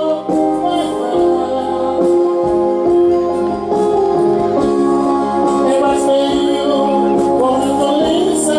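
A song sung into a microphone over an electronic keyboard, the keyboard holding organ-like chords under a wavering vocal line.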